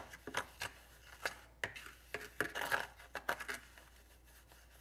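A handheld magnet stirred and dragged through dry paydirt in a metal tin, checking it for magnetic black sand: irregular scraping and clicking of grit against the tin.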